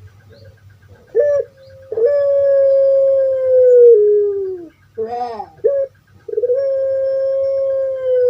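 Puter pelung dove (Streptopelia risoria) calling: a couple of short notes, then two long drawn-out coos, each held steady for about two and a half seconds before dropping in pitch, with a brief rough note between them.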